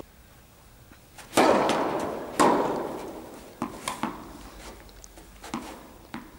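Tennis ball impacts echoing in a large indoor tennis hall: two loud strikes about a second apart, each ringing out slowly, then a few lighter taps as the ball is bounced on the court before a serve.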